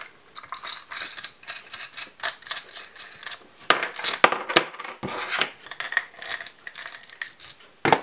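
Irregular small metallic clicks and clinks of steel washers and a removed bottom-bracket ball bearing knocking against an M8 threaded rod and a plastic pipe piece as a homemade bearing puller is taken apart by hand, with a sharper click near the end.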